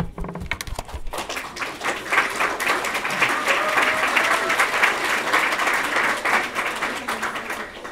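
Audience applauding: the clapping builds over the first two seconds, holds steady, and fades away near the end, with a voice or two calling out in the middle.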